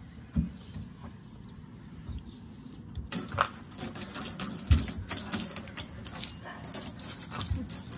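Milk poured from above splattering onto a person and the wooden decking: a dense patter of splashes that starts about three seconds in. Before it, a few soft thumps.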